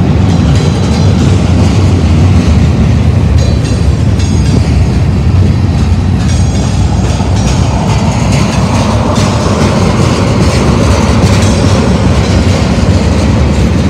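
Freight cars of a manifest train rolling past close by: a loud, steady rumble of steel wheels on the rails, with repeated clacks as the wheelsets pass.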